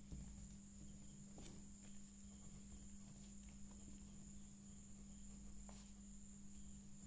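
Near silence: room tone with a steady low hum and a faint steady high whine, with a few faint ticks and scratches of a ballpoint pen writing on paper.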